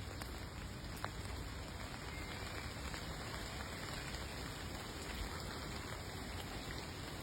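Steady rain falling, a continuous patter of drops with scattered individual drips, one sharper drip about a second in.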